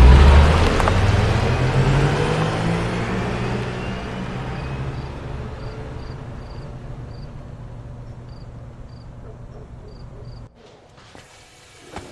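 A car engine revs and pulls away, its sound fading steadily over about ten seconds before it cuts off abruptly. Faint high chirps repeat at even intervals as the engine fades.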